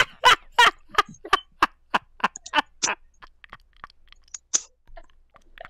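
Hard, rapid laughter in short bursts about four a second, growing fainter and dying away about three seconds in, with a few faint breathy sounds after.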